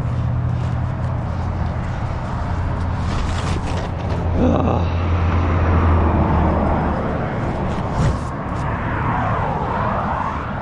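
Motor vehicles going past on a road, with a steady low engine hum that swells for a couple of seconds midway, and a short knock about eight seconds in.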